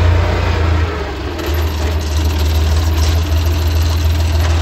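Tractor's diesel engine running, heard from inside the cab as a loud, steady low drone. The engine note dips briefly about a second in, then holds steady.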